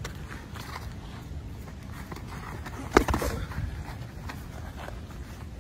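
Boxing gloves during sparring: a sharp slap of a glove landing about three seconds in, the loudest sound, followed by a few softer knocks.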